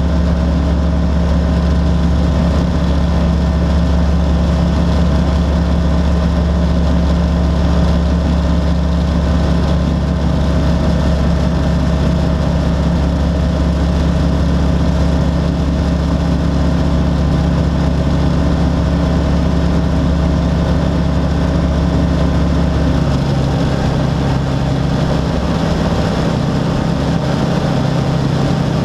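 Rans S-6S Coyote II light aircraft's engine and propeller droning steadily in cruise flight, heard inside the cockpit. About three-quarters of the way through, the drone changes tone.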